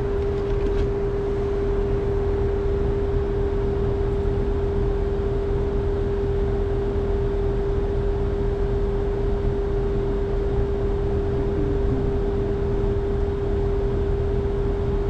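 Outdoor unit of an old Trane two-stage air conditioner running, a steady hum with one constant mid-pitched tone over a low rumble.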